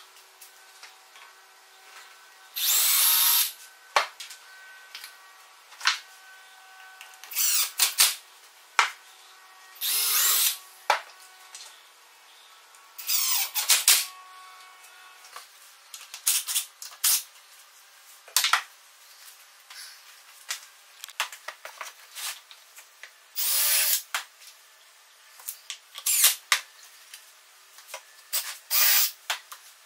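DeWalt cordless drill running in several short bursts, about a second each, drilling into plywood blocks. Between the bursts come short knocks and clatter of wood pieces, a bar clamp and tools being handled on the bench.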